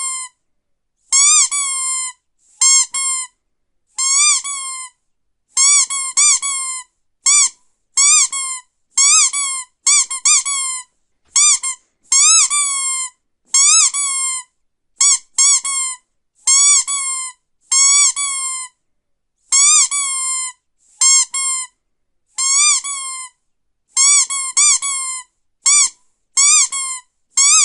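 Rubber squeaky dog toy being squeezed over and over, each squeeze a short high squeak, often in quick pairs, about one or two a second with gaps between.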